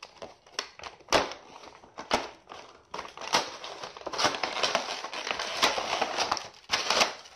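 Action figure packaging being opened by hand: the cardboard window box and its clear plastic blister tray crinkle and crackle, with sharp snaps and clicks, the crackling getting dense from about three seconds in.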